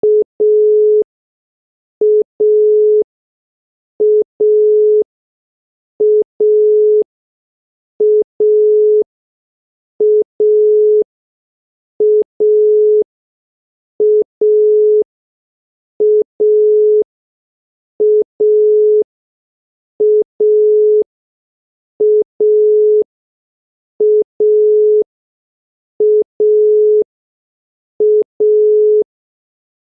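Italian telephone dial tone: a single 425 Hz tone in a repeating cadence of 0.2 s on, 0.2 s off, 0.6 s on and 1 s off, heard as a short beep then a longer beep every two seconds. It signals that the exchange is ready for the caller to dial.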